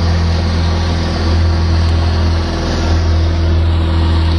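Boat's outboard motor running steadily under way, a constant low drone over a steady hiss of wind.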